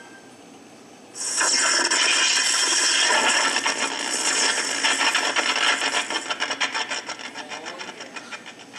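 Electric crackling buzz sound effect played by a homemade flux capacitor prop, starting suddenly about a second in. It breaks into rapid pulses that slow and fade near the end.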